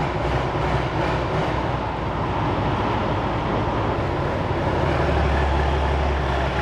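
Nashorn tank destroyer's engine running as the tracked vehicle drives slowly on its steel tracks, a steady mechanical drone with track and running-gear noise; the low engine drone grows stronger about four seconds in.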